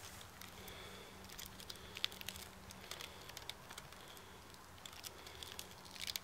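Faint crinkles and light clicks of a padlock's clear plastic blister pack being handled and turned over in the hands.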